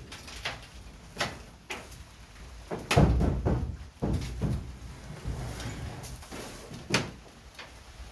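Irregular knocks and bangs from handling building materials during barn repair work, about eight in all, the loudest about three seconds in, over a low rumble.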